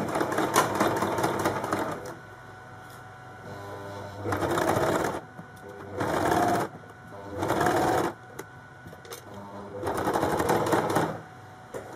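Sewing machine stitching a zip in with a zipper foot, running in five short bursts of a second or two with pauses between.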